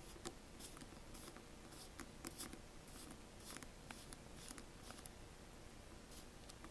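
Faint, irregular small clicks and scrapes of a magnetic precision screwdriver's P2 pentalobe bit working the tiny bottom screws of an iPhone 5c.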